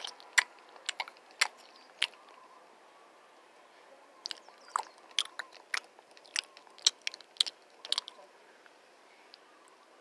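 Sharp, irregular clicks and taps of plastic toy animals knocking against each other and against a wooden railing: a quick cluster in the first two seconds, a pause, then another run of clicks.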